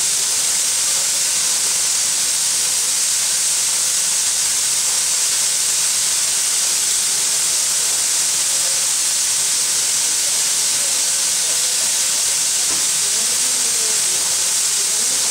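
Steam locomotive L-4600, a Soviet L-class engine, venting steam in a steady, loud hiss that holds unchanged throughout. Faint voices come in near the end.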